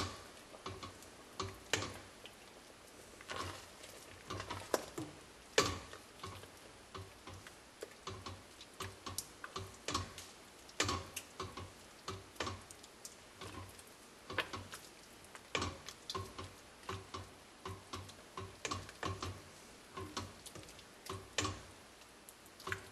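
Irregular light clicks and taps, coming one to several a second, as the head of a stick blender knocks against the pot while it is worked through thick pumpkin soup.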